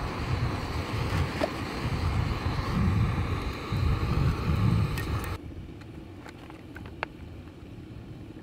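Jetboil canister gas stove burning under its cup, a steady hiss and rumble. About five and a half seconds in it cuts off suddenly to a quieter background with a few light clicks.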